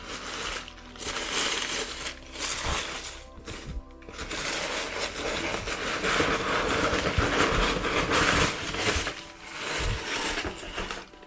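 Crumpled tissue paper packing crinkling and rustling in several bursts as a boxed item is worked loose and lifted from a cardboard carton, the longest stretch lasting about five seconds from around four seconds in. Soft background music plays underneath.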